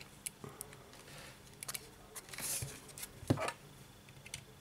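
Faint clicks and scraping from a smartphone's plastic housing being handled and its frame clips pried, with a short scrape about two and a half seconds in and a sharper click a little after three seconds.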